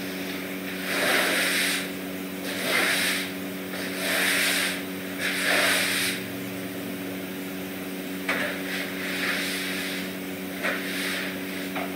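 Broom sweeping a hard plank floor: four long swishes in the first six seconds, then softer, shorter strokes.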